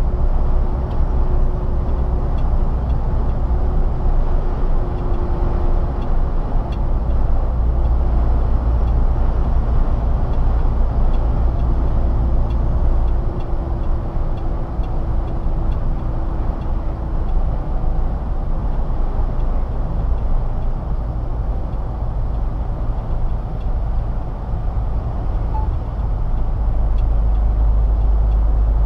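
Steady low rumble of a MAN TGA truck's engine and tyre noise, heard inside the cab while cruising on the highway.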